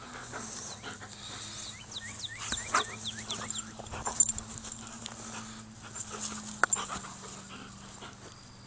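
German Shepherd close to the microphone, panting, with a quick run of short high whines about two to three seconds in. Rubs and knocks from the handheld phone are mixed in.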